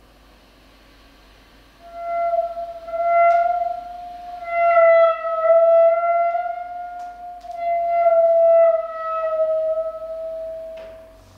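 Clarinet holding one long note that swells and fades in several waves, with a few faint clicks, in an improvised new-music piece.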